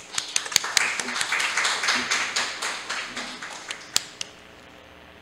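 A small group of people clapping, with the separate claps audible, dying away about four and a half seconds in.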